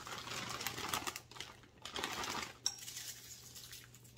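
Frozen diced onion pieces clicking and pattering as they are dropped by hand into a slow cooker, with the bag rustling as a hand reaches in. One sharper click about two-thirds of the way through.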